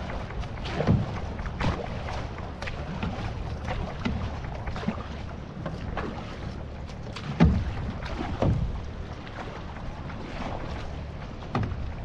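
Outrigger canoe (va'a) being paddled: repeated paddle strokes splashing into the water at roughly one-second intervals, the loudest about seven seconds in, over a steady rush of water and wind buffeting the microphone.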